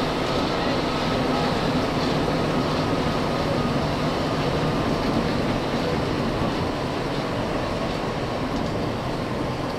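An MP 59 rubber-tyred Paris Métro train standing at the platform, giving a steady hum and hiss, with a faint high tone that fades out about two seconds in.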